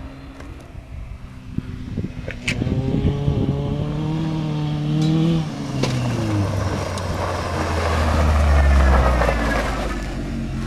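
Pickup truck engine revving as it drives over a dirt track toward and past, its pitch climbing and then dropping sharply about halfway through. It grows louder as it comes close, with tyre noise on the dirt building in the second half.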